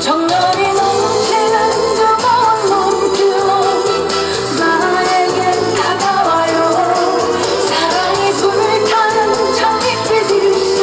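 A woman singing live into a microphone over a backing track with a steady beat, her voice gliding and holding long notes.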